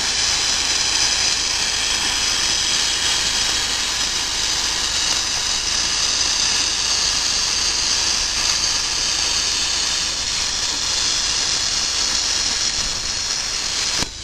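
Lotos Cut40D plasma cutter torch cutting through 1/8-inch aluminium tread plate: a steady, loud hissing rush of the compressed-air plasma arc, which cuts off suddenly near the end as the cut finishes.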